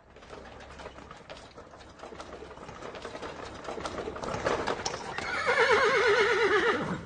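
Horse hooves clip-clopping, building in loudness, then a horse giving one long, wavering whinny over the last second and a half.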